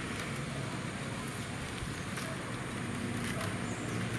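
Light clicks and rustles of split bamboo strips being woven by hand, over a steady low hum of distant road traffic.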